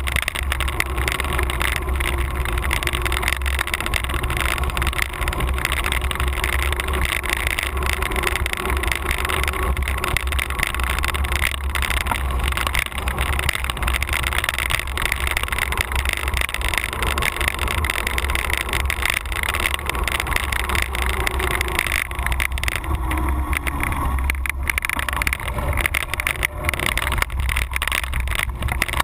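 Wind buffeting a moving action camera's microphone with steady road rumble, a constant low rushing noise while riding along a road at speed.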